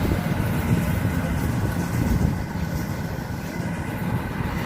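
Yanmar AW82V combine harvester's diesel engine and threshing machinery running steadily under load while harvesting rice.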